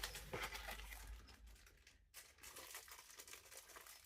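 Faint crinkling and rustling of packaging being handled as items are taken out of a parcel box.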